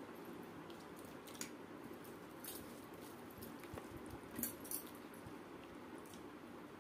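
Hand-eating sounds: fingers squishing and mixing rice with dal on a steel plate, with a few soft clicks and clinks from bangles and the plate over a steady low background hum.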